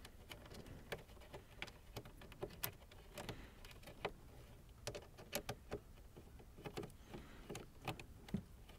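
Faint, irregular clicks and ticks of a ratchet with a 7mm socket on an extension, and of a small bolt, as the bolt is worked out of a car's plastic dash panel.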